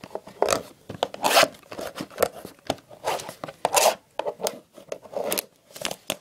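Plastic wrapping being ripped and pulled off a box of trading cards, in a quick irregular run of short scratchy tears and rubs.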